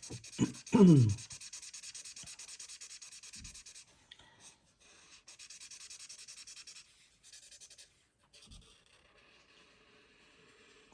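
Felt-tip marker scrubbing back and forth on cardstock in quick, even colouring strokes, about five a second, in spells with short pauses between. A brief sound of the colourist's voice comes at the very start.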